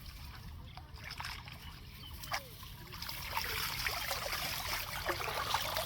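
Water trickling and splashing, with many small splashes, growing louder and busier about three seconds in.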